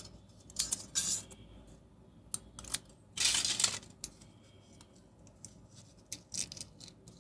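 Thin aluminium foil being handled and rolled into a small tube: scattered sharp crinkles and clicks, with a longer crinkling rustle about three seconds in.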